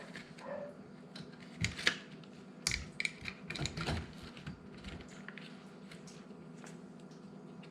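Short clicks and taps of hands handling parts and fittings around a dishwasher being serviced, clustered in the first half, then only a faint steady hum.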